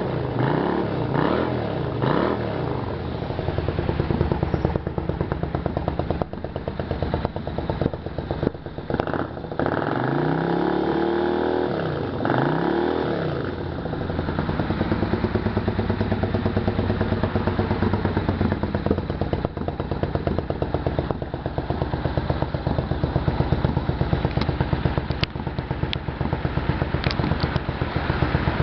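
Suzuki Intruder 800's V-twin engine running with a fast pulsing beat. It is revved in a few quick blips near the start and rises and falls twice more around ten to fourteen seconds in, then settles back to a steady idle.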